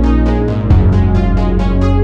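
Background music with a steady beat, about four pulses a second, over held chords; the bass shifts a little under a second in.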